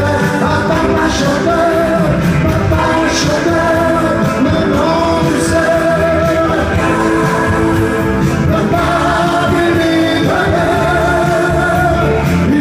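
Live French pop-rock song: a male singer singing into a microphone, holding wavering notes, over keyboard and band backing.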